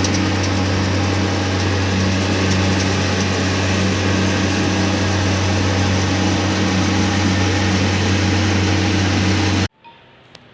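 Tuned Yamaha MX King motorcycle engine running loud and steady at a constant speed, with no revving up or down. It cuts off abruptly near the end.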